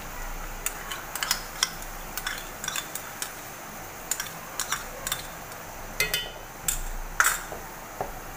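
Irregular clicks and knocks of a spoon and spatula against a bowl and a cooking pot as yogurt is poured into simmering chicken and stirred in, over a faint steady hiss. The loudest knocks come near the end.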